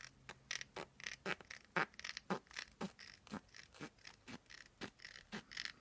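Scissors snipping through paper, a steady run of short cuts at about four a second.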